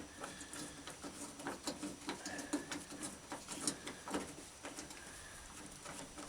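Irregular light clicks and taps of metal parts being handled inside a truck door, over a faint steady drone.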